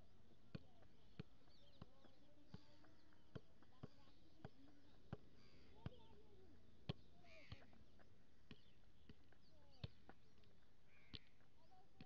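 Faint, regular knocks of a football being kicked up in keepy-uppy, about one touch every two-thirds of a second, with birds calling in the background.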